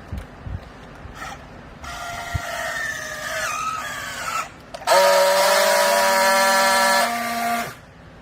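Hydraulic baler press working under load: a whine that sinks slowly in pitch for a couple of seconds, then a louder, steady whine with a hiss for nearly three seconds that cuts off sharply. A couple of knocks come just before.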